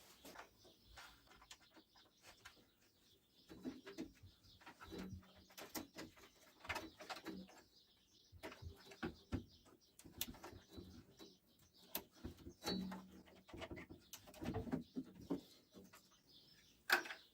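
Faint, scattered clicks and light knocks of small parts being handled as a clothes dryer's control board and selector switch are fitted back in place. Two brief low notes come about five seconds in and again near thirteen seconds.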